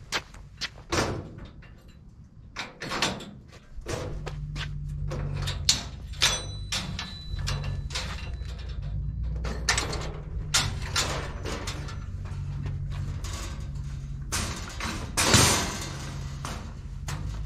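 Metal clanks and rattles of a steel mesh bifold loading ramp being handled and unfolded from a pickup's rear carrier, with the loudest clatter about fifteen seconds in as the ramp comes down to the ground. A steady low hum runs underneath from about four seconds in.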